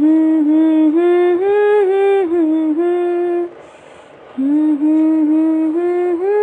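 A woman humming a lullaby tune without words, in long held notes: two phrases with a pause of about a second between them.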